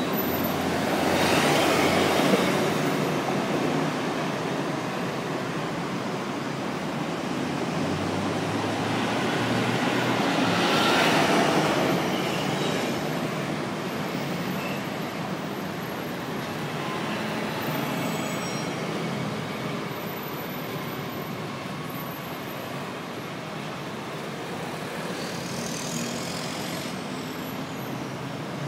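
Dense rush-hour road traffic on a multi-lane city road: a steady wash of engines and tyres, with two louder swells, about two seconds in and about eleven seconds in.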